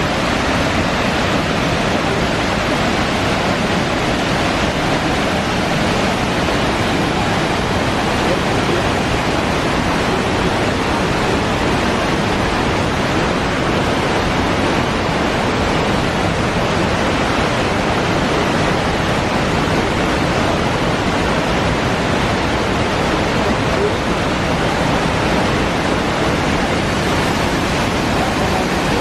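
Waterfall in heavy flow: a loud, steady rush of falling water with no breaks or changes.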